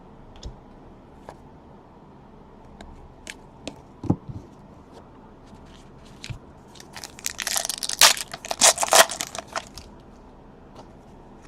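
Light handling clicks, then a few seconds of crinkling and tearing from a trading-card pack wrapper being ripped open.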